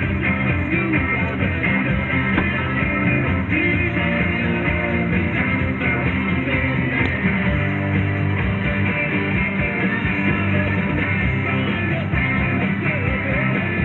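Rock music with electric guitar and a singing voice, playing steadily.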